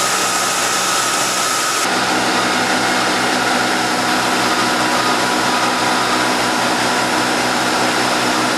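CNC milling machine cutting an aluminium billet clutch helix under flood coolant: a steady hiss with a high whine. About two seconds in, the sound changes abruptly to a steadier, lower machine hum.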